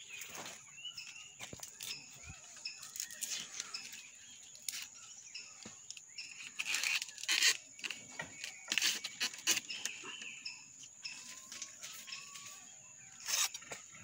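Dry fibre being stripped and torn by hand from a kithul palm's flower stalk: irregular scraping and rustling strokes, with a run of louder rips about halfway through and one more near the end.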